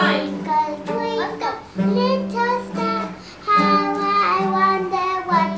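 Music: a song sung in a child's voice, with instrumental backing.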